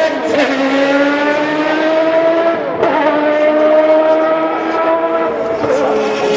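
Race car engine accelerating hard through the gears. The pitch climbs steadily and drops sharply at each upshift, about every two and a half seconds.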